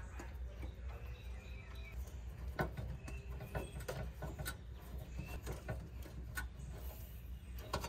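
Scattered sharp clicks and snaps of hand-tool work on the condenser, with birds chirping and cooing faintly in the background.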